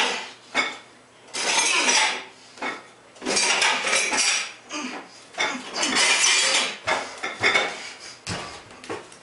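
Push-ups against a kitchen counter, with a loud burst of clatter from the dishes and pans on the counter about every two seconds. Near the end the rhythm breaks up into shorter, uneven bursts.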